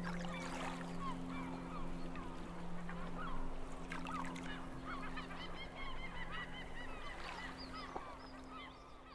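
A flock of birds calling: many short, overlapping calls, with a steady low drone underneath. It fades a little near the end.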